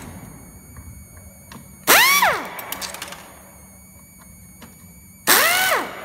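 Pneumatic screwdriver run in two short bursts about three and a half seconds apart, driving screws. Each burst is a whine that rises and falls with a rush of exhaust air.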